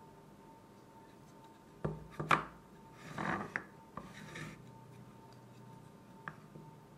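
Handling noises from a workbench: a few sharp knocks and clicks, with two short bursts of rubbing or scraping between them, over a faint steady hum.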